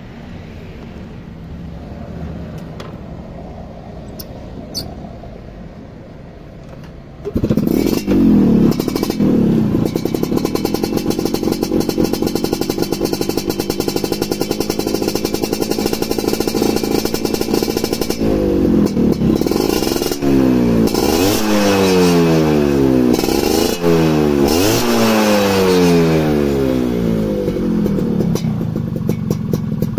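A Yamaha Alfa's two-stroke single fires up about seven seconds in through an aftermarket F1ZR expansion-chamber exhaust and idles. About two-thirds of the way through it is revved up and down several times in quick succession, then settles back to idle. The exhaust note has a metallic ring; the owner says the two-stroke oil setting is a little rich, so the ringing is not very strong.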